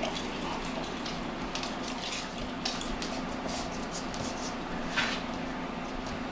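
A Doberman puppy moving about at play, making scattered light clicks and scuffles, with a sharper scuffle about five seconds in, over a steady low hum.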